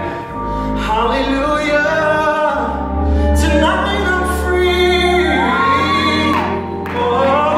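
Live gospel music: a male lead singer holding and bending long notes over a band, with backing singers and sustained bass notes underneath.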